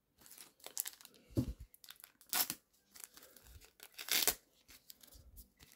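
A trading-card booster pack's wrapper being crinkled and torn open by hand, in a string of short, irregular rips and rustles, the strongest about a second and a half, two and a half and four seconds in. The pack is stubborn to open.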